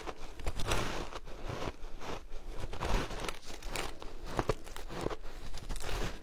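Chunks of colourful frozen shaved ice being bitten and chewed, with irregular crisp crunches at about one or two a second.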